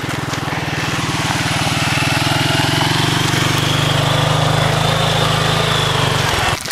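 A small engine running steadily: a low drone with a fast, even pulse and a faint high whine above it. It cuts off suddenly near the end.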